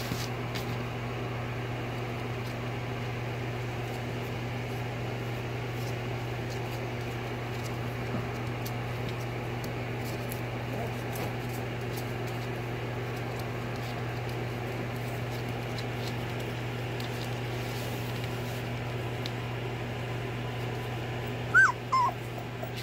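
A steady low hum with faint ticks, then near the end a few short, high whimpers from three-week-old husky puppies.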